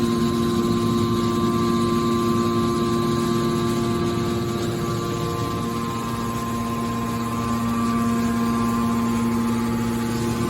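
Hydraulic scrap metal baler's power unit running, a steady mechanical hum with a whine from the pump and motor. The whine eases somewhat midway and comes back up near the end.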